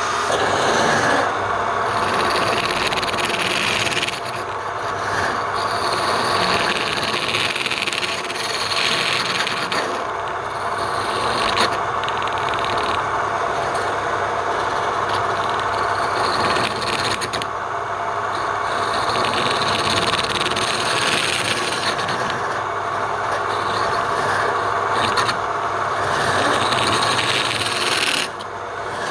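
Wood lathe running with a steady motor hum while a tool rasps against the spinning wood. The scraping swells and eases every few seconds.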